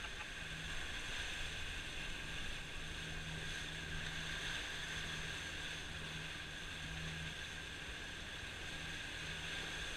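Steady rush of wind and water from a sailboat under way through choppy sea, its wake churning, with a low hum that comes and goes.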